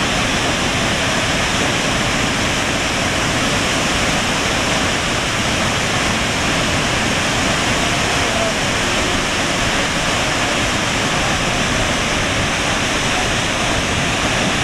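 Steady, loud rush of a tall waterfall, water plunging down a rock cliff into the pool below.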